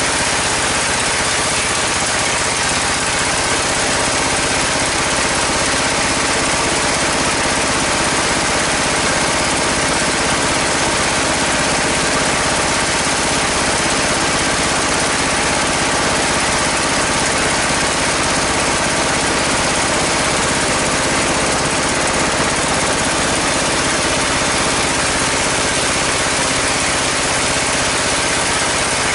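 A sawmill's 28-inch bandsaw, driven by a 24 hp engine, running steadily with a loud, even mechanical din.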